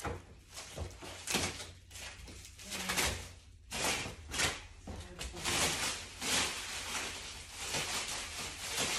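Plastic wrapping crinkling and rustling in irregular bursts as it is pulled off a boxed table, with cardboard scuffing and a few light knocks.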